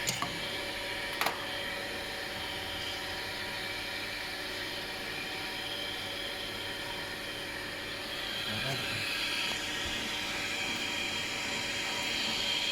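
Steady machinery hum with a high whine that grows a little louder about two-thirds of the way through, and two light clicks near the start.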